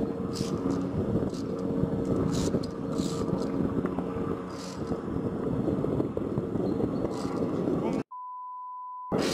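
Wind buffeting the camera microphone on an exposed rock top: a dense rumble with gusty hiss. About eight seconds in it cuts off suddenly, and a steady high beep sounds for about a second.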